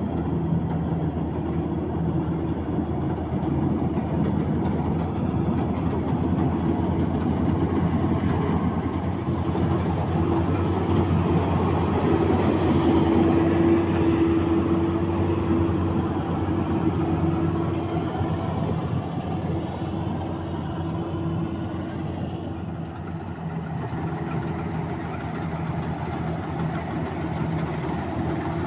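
Maxxi Bimo 102 combine harvester's engine running steadily, a little louder for a few seconds around the middle.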